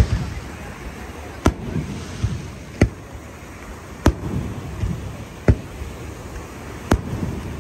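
Aerial fireworks shells bursting overhead: six sharp bangs spaced about a second and a half apart, over a steady low rumble.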